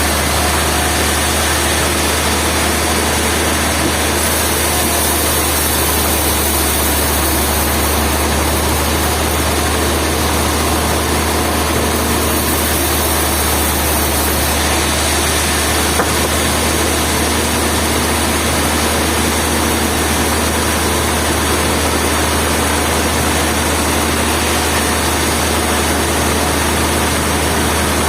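Industrial sawmill machinery running with a steady, unbroken drone and a strong low hum.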